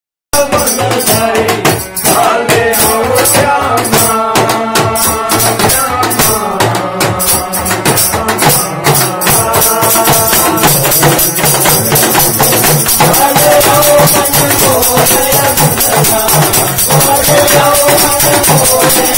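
Men singing a Himachali devotional bhajan together, accompanied by a small two-headed barrel drum struck by hand and stick and a rattling hand shaker.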